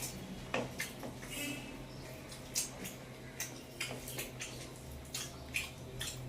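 Quiet eating sounds: chewing and mouth noises with about a dozen short, irregular clicks and smacks from people eating a rice meal, over a low steady hum.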